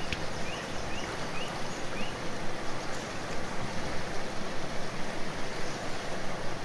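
Shallow river water running steadily, with hands swishing and splashing in it as tomatoes are rinsed. Four short rising chirps sound between about half a second and two seconds in.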